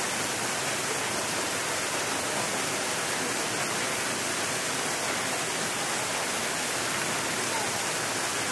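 Small waterfall pouring down a rock face: a steady, even rushing of water.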